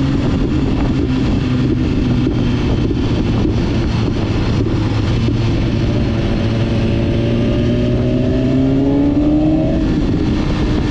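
BMW sport bike's engine heard while riding along at speed, with wind rushing over the microphone. The engine note sinks over the first couple of seconds, holds, then climbs steadily under throttle from about six seconds in and drops abruptly near the end.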